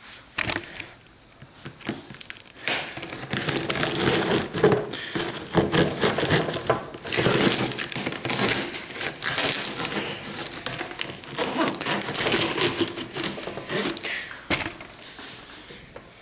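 Cardboard box being pulled open by hand: crinkling, rustling and tearing of the cardboard packaging. The sound is sparse at first, runs dense and continuous from about two seconds in, and eases off near the end.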